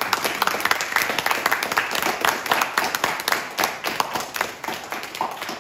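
Applause from a small group of people: a dense run of hand claps that dies away near the end.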